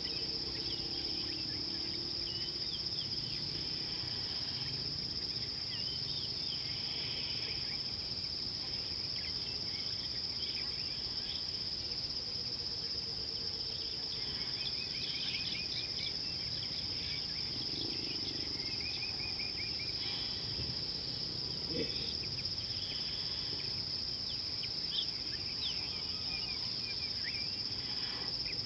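Steady high-pitched insect chorus of crickets or similar insects, with short bird chirps and calls breaking in now and then, more of them in the second half.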